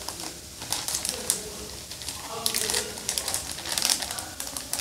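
Plastic vacuum-bag film crinkling and rustling in irregular bursts, with small clicks, as a plastic hanger is slid onto the bag's edge.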